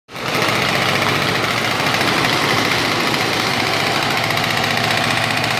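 A motor or engine running steadily, with a fast even pulse beneath a broad hiss.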